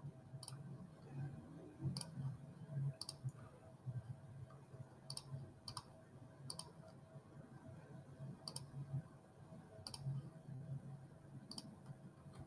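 Faint sharp clicks, about nine of them at irregular intervals, over a faint low background hum.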